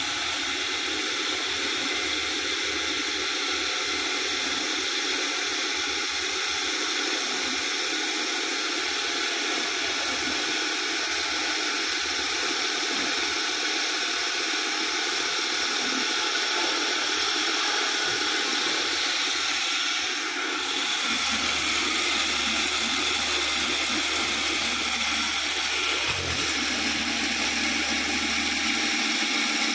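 Steady machinery noise of a spice-grinding plant, a constant rushing hiss with several whining tones through it; a low hum joins about two thirds of the way through.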